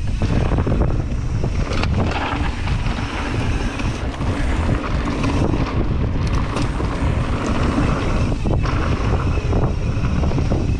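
Wind rushing over the microphone during a mountain bike descent of a dirt flow trail, with a steady low rumble from the tyres and a few knocks as the bike goes over bumps.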